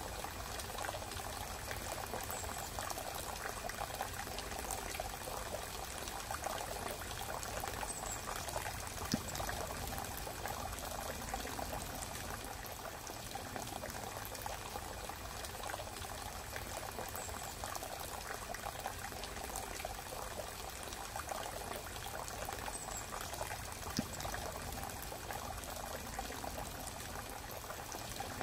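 Steady running water, with a brief click twice.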